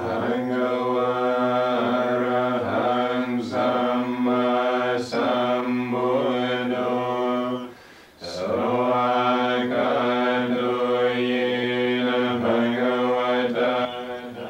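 Theravada Buddhist monks chanting in homage in Pali, several male voices together on a steady near-monotone. The chant breaks briefly about eight seconds in, then resumes.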